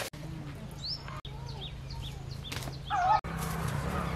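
Birds chirping: short high falling chirps, with a louder warbling call about three seconds in, over a low steady hum. The sound cuts out for an instant a few times.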